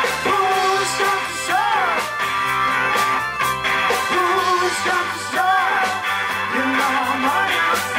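A live rock band playing: a woman singing lead over electric guitar, bass guitar, keyboard and a drum kit keeping a steady beat.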